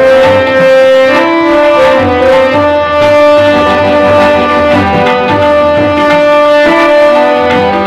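Instrumental music: a keyboard instrument plays a melody of held notes, accompanied by tabla drumming.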